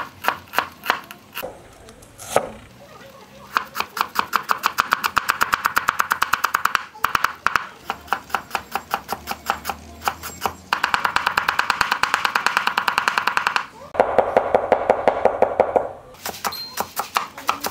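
Cleaver chopping and mincing red onion and ginger on a thick wooden chopping board: fast runs of even knocks of the blade on the wood, with short pauses between runs.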